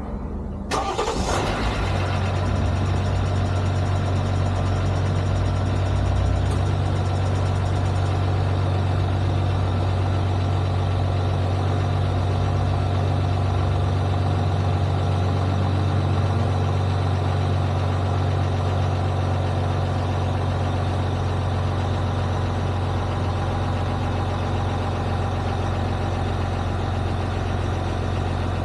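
Jeep Gladiator engine started with a brief crank that catches about a second in, then idling steadily.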